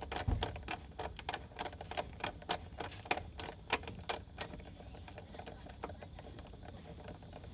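Socket ratchet clicking in quick, irregular runs as a bolt is wound out, stopping a little past halfway.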